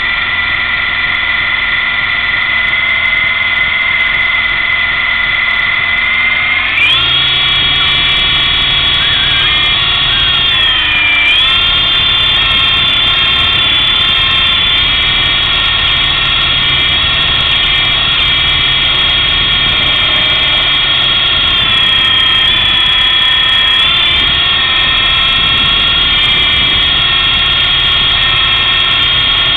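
Small electric RC helicopter's motor and rotor, heard from a camera mounted on the helicopter itself, running as a loud, steady whine. About seven seconds in the pitch jumps up as the helicopter is throttled up and lifts off, and it then wavers up and down with throttle while it flies.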